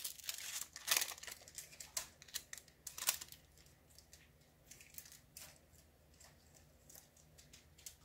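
Plastic wrapper crinkling as it is pulled off a deck of cards, in quick crackles over the first three seconds, then a few faint ticks of the cards being handled.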